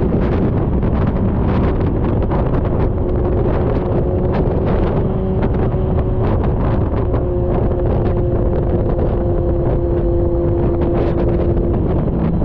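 Heavy wind buffeting on a GoPro Hero 9's microphone while riding: a loud, constant rumble with frequent crackles from the gusts. Under it runs a steady hum that holds nearly one pitch, shifting slightly a few times.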